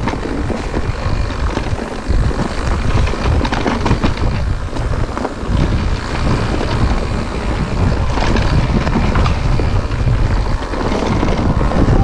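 Wind buffeting the microphone of a camera riding on an e-mountain bike, over a dense rumble from the tyres on a rough trail, with frequent small knocks and rattles from the bumps.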